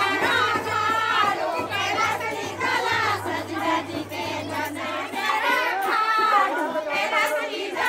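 A group of women singing a Garhwali folk song together in a circle dance, with hand claps among the voices.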